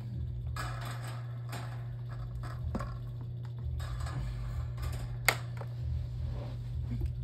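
Handling noise of a power cord and plug: scattered light scrapes and rattles with a sharp click about five seconds in, over a steady low hum.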